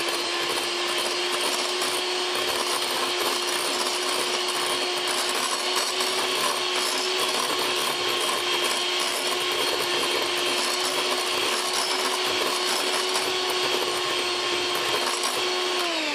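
Electric hand mixer running at a steady speed, its twin beaters whisking stiff meringue in a glass bowl to blend in red food colouring: a steady motor whine over the whisking noise. It begins to wind down as it is switched off at the very end.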